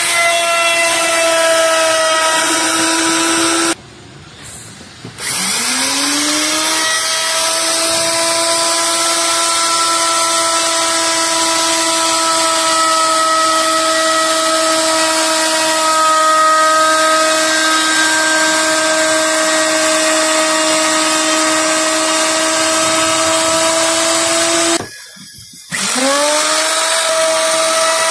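Handheld electric router running at full speed with a steady high whine as it is guided through solid oak. Twice the sound cuts out for about a second and comes back as a rising whine while the motor spins back up to speed.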